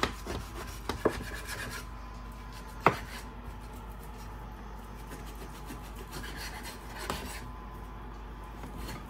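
A kitchen knife sawing through a boneless ribeye roast on a wooden cutting board, a soft rasping with a few sharp clicks, the loudest about three seconds in.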